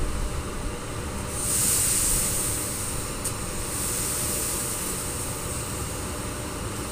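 Hiss of compressed air from an EP1 electric locomotive about to depart. It comes in sharply about a second and a half in, is loudest for a couple of seconds, then eases off but keeps going. There is a single click midway and a low rumble underneath.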